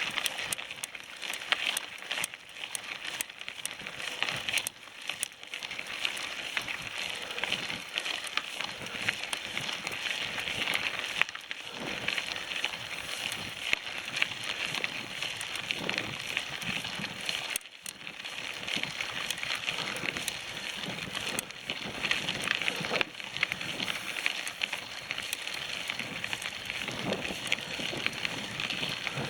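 Steady crackling and crunching with many small clicks, as bicycle tyres roll over a dirt trail.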